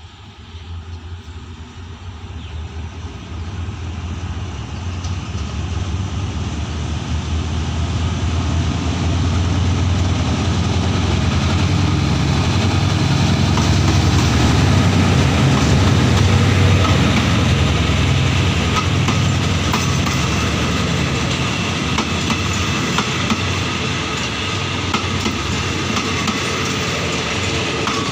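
Hitachi diesel-electric locomotive 4509 pulling a passenger train out of a station. Its engine drone grows steadily louder as it approaches and peaks about halfway through as the locomotive passes, then the coaches roll by with the wheels clacking over the rail joints.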